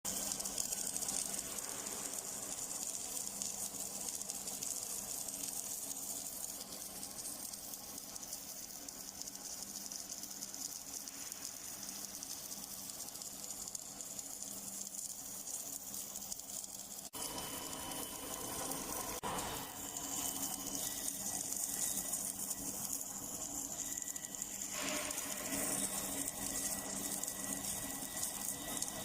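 Automatic submerged arc welding machine running a circumferential weld on a pipe: a steady hiss with a faint low hum, broken sharply about 17 seconds in.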